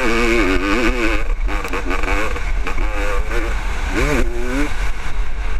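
Onboard sound of a 1996 Honda CR500's single-cylinder two-stroke engine at race pace, its revs swinging up and down over and over with the throttle, over a steady low rumble of wind buffeting the helmet camera.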